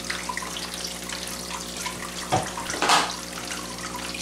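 Water trickling and bubbling in an aquaponics fish tank over a steady hum, with small drips and pops. Between two and three seconds in, a small plastic container is dipped into the tank water with two short splashes as it is filled with fish water.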